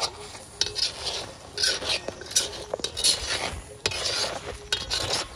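Perforated metal skimmer scraping and stirring soft food around a shallow metal pan, in a run of irregular strokes.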